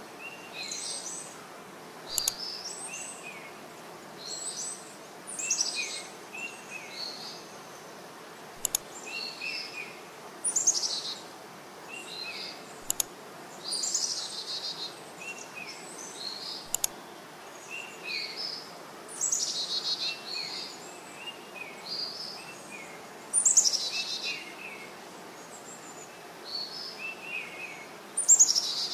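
Birds chirping in short, repeated calls over a steady outdoor background hiss, with a few sharp clicks.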